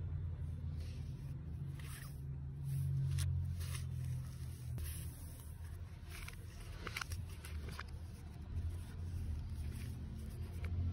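Paper sleeves and card inserts rustling, with a few light taps against a cardboard phone box as they are lifted out and handled, over a steady low hum.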